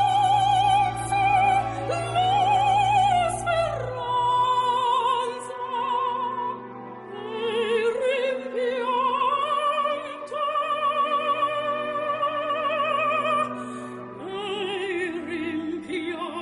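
Opera music: a singer holding long notes with wide vibrato, stepping and gliding between pitches over a sustained accompaniment.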